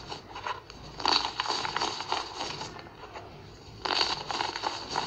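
Pressed baking soda being crushed in the fingers: a fine, gritty crackling crunch, in two spells, about a second in and again near the end.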